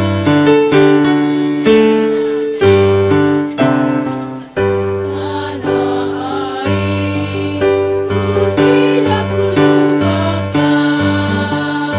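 Music: a keyboard plays chords in a steady pulse, with a choir singing along in places.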